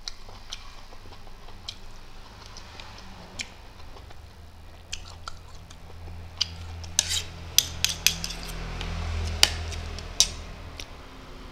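Metal spoons clinking and scraping against a ceramic plate and glass bowls while rice is scooped, a scatter of sharp clinks that come thicker in the second half, over a low hum.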